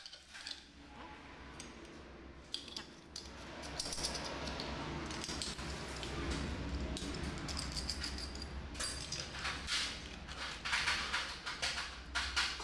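Clicks and light clattering of pendant-lamp parts being handled: black cylindrical lamp housings picked up and set down, and a bulb being fitted into its socket, with the clicks coming thick and fast in the second half. A steady low rumble runs underneath.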